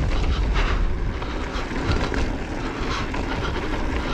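2020 Specialized Enduro Comp mountain bike rolling fast down a dirt singletrack: tyre noise on the dirt with the bike rattling over bumps a few times, under a heavy low rumble of wind on the microphone.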